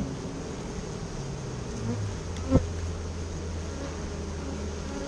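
Carniolan honey bees buzzing in a steady drone around an open hive. One sharp knock sounds about two and a half seconds in.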